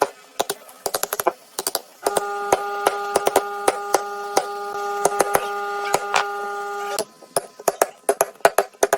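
Woodworking knocks: a quick run of sharp, irregular blows on wood, several a second. From about two seconds in to about seven seconds in, a steady humming tone runs under them, then cuts off.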